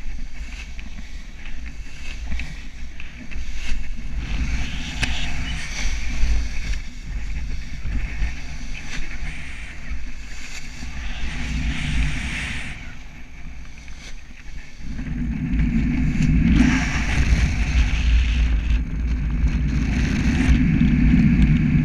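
Wind rushing over a camera's microphone in paraglider flight: a continuous low rumble with hiss, swelling louder in the second half.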